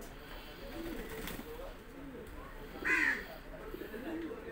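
Lahori pigeons cooing: low, wavering coos, with one short, louder, higher-pitched bird call about three seconds in.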